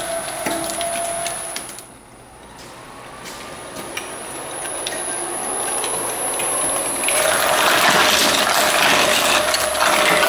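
Electric twin-shaft shredder running with a steady whine, its cutter discs grinding up rubber toy ducks for the first couple of seconds. After a short drop in level it builds again, and from about seven seconds in the blades bite into a whole raw chicken with a loud, dense crackle of tearing.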